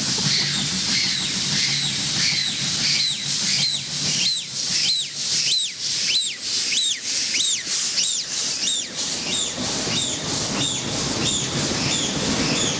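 Steam locomotive No. 620 working hard as it approaches and passes, its exhaust chuffing in a steady rhythm with steam hissing, strongest as the engine goes by in the middle. Near the end the coaches roll past.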